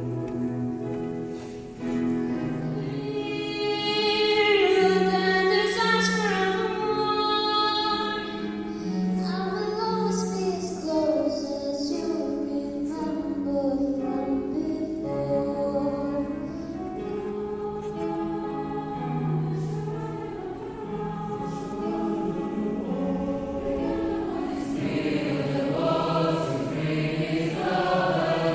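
A choir singing, several voices holding long notes together and moving from chord to chord about once a second.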